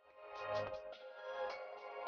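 Background music: a melodic instrumental passage with a soft low pulse, coming back in after a brief break.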